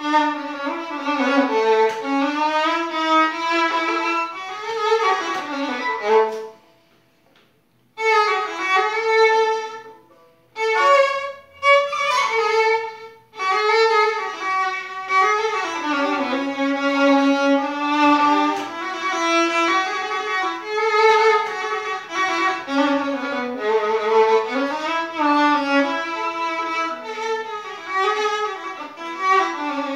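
Solo violin, held upright on the knee, bowed in a flowing, ornamented melody with sliding notes. It stops for about a second and a half about six seconds in, then again briefly around ten and thirteen seconds before the melody carries on.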